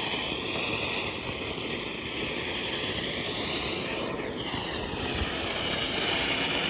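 A ground firework spraying sparks with a steady, rushing hiss that holds through the whole stretch, its tone slowly sweeping.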